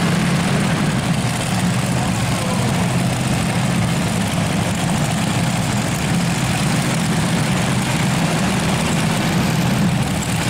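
Multi-engine modified pulling tractor with three supercharged engines running at a steady idle, a deep even drone with no revving.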